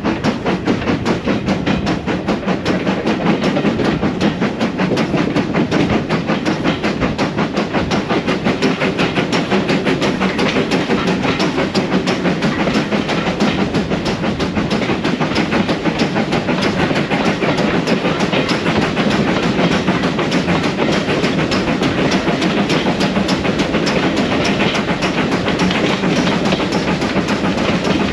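Steam-hauled passenger train behind GWR Modified Hall No. 6990 Witherslack Hall running at speed, heard from aboard the carriages: a steady rumble with a rapid, even beat of clicks from the wheels and locomotive.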